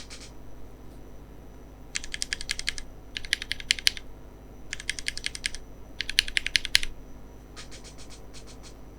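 Typing on a mechanical keyboard fitted with Cherry MX Black Clear-Top ("Nixie") linear switches, in five quick bursts of keystrokes, the last burst sparser. The switches have been broken in over a million cycles.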